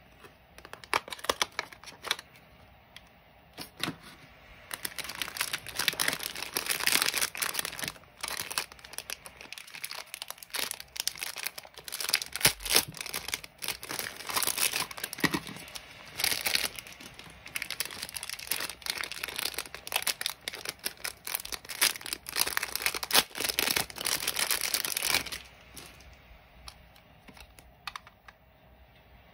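Clear plastic blister packs of glue-tape runners being handled, crinkled and torn open by hand: a few sharp handling clicks at first, then a long dense run of crackling and tearing that stops a few seconds before the end.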